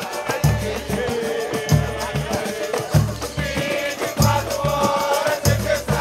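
Live samba from a roda. A deep hand drum beats about once a second under rattling percussion, and voices sing together, fuller in the second half.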